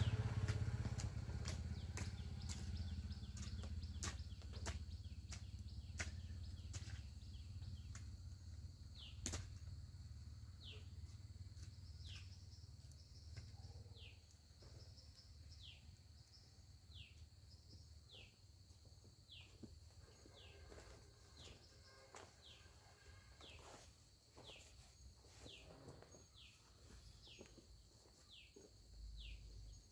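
A passing motorcycle's engine fades away over the first dozen seconds, with scattered sharp knocks of a hoe striking soil. From about twelve seconds in, a bird repeats a short falling chirp roughly once a second.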